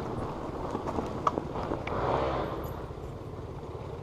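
Yamaha YZ250 two-stroke dirt bike ridden along a dirt trail, its engine running low and fairly steady under the noise of the ride, with a few sharp knocks.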